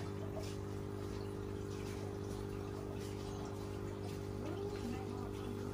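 Steady low hum with faint water trickling and dripping.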